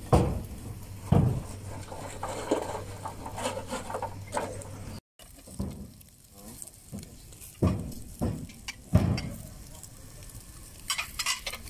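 Meat skewers grilling over glowing charcoal, with light crackling and sizzling, broken by several loud dull thumps and knocks.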